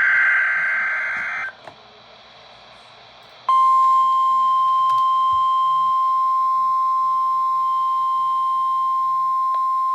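NOAA Weather Radio alert sequence. A buzzy digital SAME header burst ends about a second and a half in, followed by two seconds of faint radio hiss. Then the steady single-pitch 1050 Hz weather radio alarm tone starts abruptly and holds, loud.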